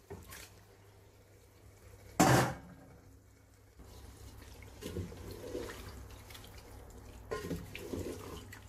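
Raw chopped chicken tipped from a steel bowl lands in a pan of wet tomato and onion masala with one loud wet splat about two seconds in. From about halfway, a wooden spoon stirs the pieces through the thick sauce with soft, irregular squelching.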